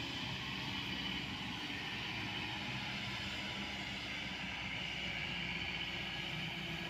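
Kobelco SK200-10 hydraulic excavator's diesel engine running steadily as the machine digs and swings, a constant low drone with a steady higher hiss above it.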